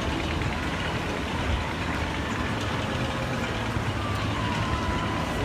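Boat motor running steadily: a low, even hum under a steady rushing noise.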